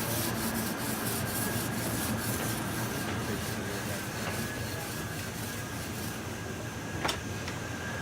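Restaurant dining-room background noise with a faint steady high tone, overlaid by rubbing and scraping sounds in the first few seconds and a single sharp click about seven seconds in.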